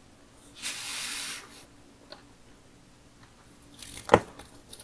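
Faint rubbing and squishing of a soft red material being handled and pressed apart by hand, a rustle lasting about a second near the start, with a sharp click about four seconds in.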